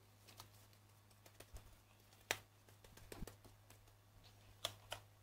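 Faint scattered taps and clicks of hands patting and shifting ciabatta dough on a metal baking tray, with one sharper knock about two seconds in and two more near the end, over a low steady hum.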